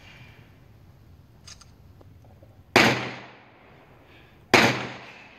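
Two pistol shots from a Glock 22 in .40 S&W, about two seconds apart, each a sharp crack trailing off over about a second.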